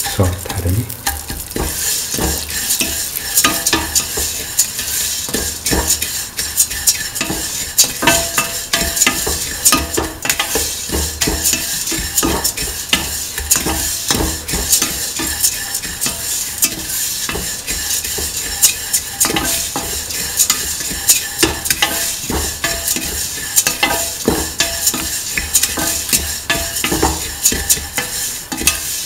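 A spatula stirring and scraping beaten rice flakes (poha) around a metal pan as they fry, with many irregular scrapes and clicks against the pan over a steady sizzle.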